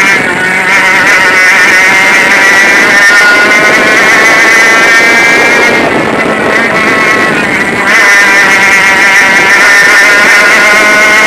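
Easykart 100cc two-stroke kart engine running hard at high revs. About six seconds in, entering a corner, the note falls and quietens, then comes back loud and climbing at about eight seconds.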